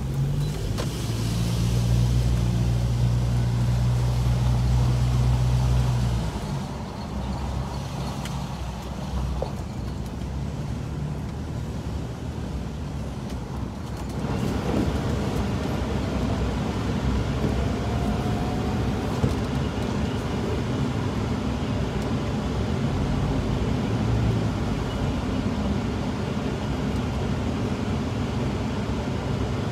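Car engine and road noise heard from inside the cabin while driving slowly. A steady engine drone is strongest for the first few seconds and eases about six seconds in. A rougher tyre and traffic rumble sets in about halfway through.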